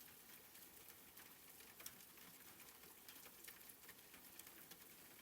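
Faint background rain: a soft, even hiss with scattered light drop ticks.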